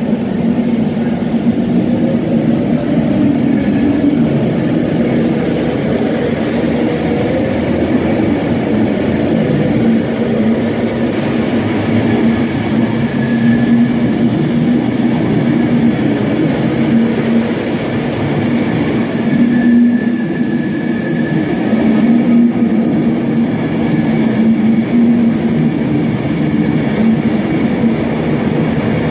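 Avanti West Coast Class 390 Pendolino electric train moving past close by: a steady rumble of wheels and running gear under a constant low hum. A brief high hiss comes in a little before halfway, and a longer one about two-thirds of the way through.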